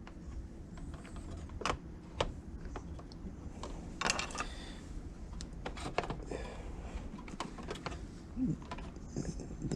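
Scattered light clicks and taps of plastic instrument-cluster parts being handled and fitted together, over a steady low hum.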